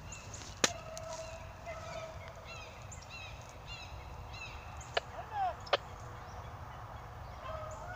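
Beagles baying, long drawn-out howls with wavering pitch, the voice of hounds running a rabbit's scent trail. Three sharp clicks cut across it, one near the start and two a little after the middle.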